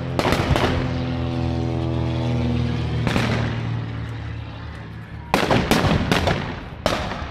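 A propeller plane's engine drones steadily overhead and fades after about three seconds. Over it come reenactors' gunshots: two in the first second, one about three seconds in, and a quick cluster near the end.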